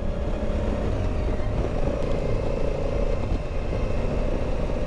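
Motorcycle cruising at steady road speed, heard from the bike itself: an even engine drone over steady wind and road noise.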